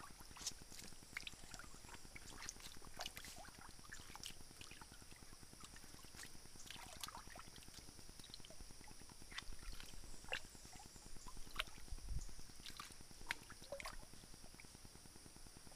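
Light splashing and trickling of a shallow rocky stream as a hand works in the water, many small irregular splashes and clicks, a few louder ones near the end, over a steady high-pitched hum.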